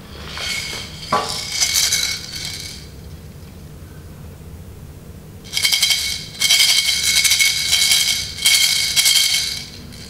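Plastic baby rattle shaken by hand in two spells, a fast, dense rattling with a bright jingling ring, with a short pause in between.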